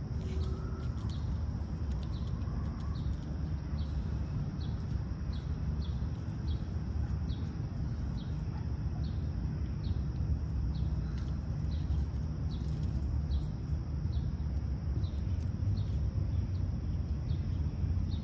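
Outdoor ambience: a steady low rumble with a short, high chirp repeated at an even pace, about one and a half times a second.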